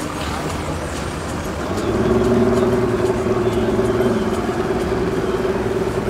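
An engine running, with a steady pitched hum that comes in about two seconds in and holds.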